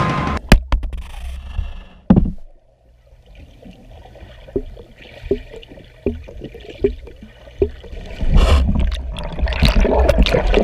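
Muffled underwater sound of a swimming pool picked up by an underwater camera. A few dull knocks come in the first two seconds, then scattered gurgling bubble pops, and near the end a louder churning rush of bubbling water.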